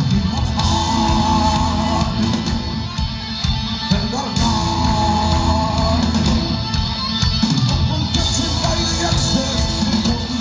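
Metal band playing live at full volume: electric guitars, drum kit and sung vocals, heavy in the bass.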